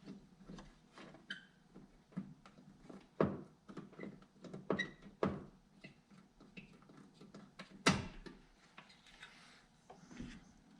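Scattered clicks, taps and knocks of hands handling the headlight wiring, connector and rubber dust boot, with one sharper knock about eight seconds in.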